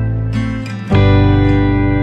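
Instrumental background music, changing to a new chord about a second in.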